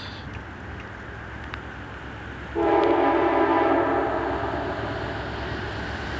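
Amtrak P42 diesel locomotive's multi-chime air horn sounding one long blast, starting a little before halfway through, over a steady low rumble of the approaching train.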